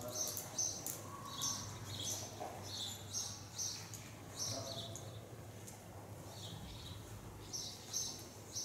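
Small birds chirping in quick, repeated short calls, many stepping down from a higher note to a lower one, over a steady low hum.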